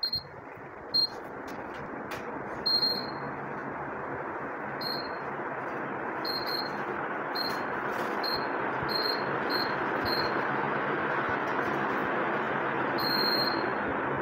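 AC/DC ceiling fan giving short high beeps as its remote's buttons are pressed, about a dozen in all, with one longer beep near the end. Underneath, a steady whoosh of moving air from the fan grows gradually louder as it speeds up.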